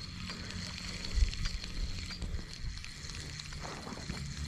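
Wind rumbling on the microphone, with a few faint clicks of handling and a thin steady high whine over it.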